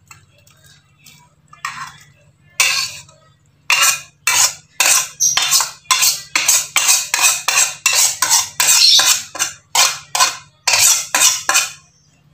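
Metal spatula scraping the cooked stir-fry out of a metal wok: a few single scrapes at first, then quick, loud repeated scrapes about two a second that stop shortly before the end.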